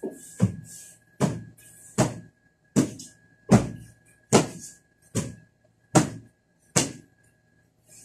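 A cloth slapped again and again onto an upholstered sofa cushion to beat the dust out of it: about ten sharp whacks, a little under one a second, which stop about a second before the end.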